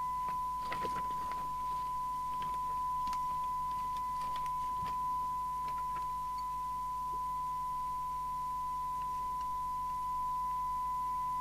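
Steady single-pitch test tone from a CB radio's loudspeaker, the receiver demodulating an AM test signal from a signal generator. Light clicks and knocks in the first few seconds come from a trimming tool being fitted to the receiver's AM detector adjustment.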